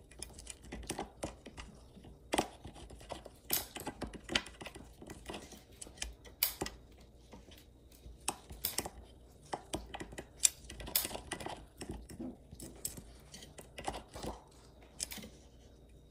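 Small pet nail clippers snipping a ferret's claws: an irregular run of sharp little clicks, a few every second.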